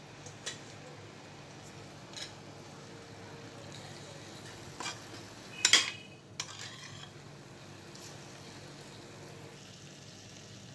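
Metal ladle stirring boiled kidney beans into fried masala in a steel pressure cooker, over a faint sizzle. There are a few light clinks and scrapes against the pot, with the loudest scrape a little past halfway through.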